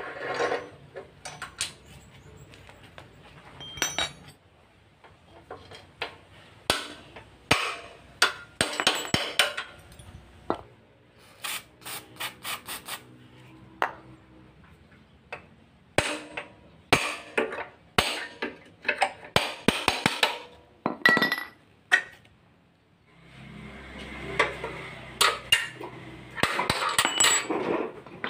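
Hand tools working on metal motorcycle parts: irregular knocks, taps and clinks of metal, with a few longer stretches of scraping noise.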